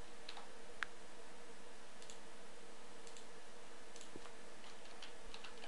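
Scattered clicks of a computer mouse, a sharper one about a second in and a quick run of them near the end, over a steady faint hiss and hum.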